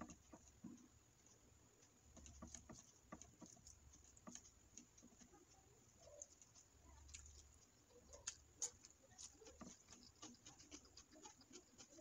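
Faint eating sounds: fingers mixing biryani rice with curry on a plate, then a mouthful taken and chewed, giving many small irregular wet clicks.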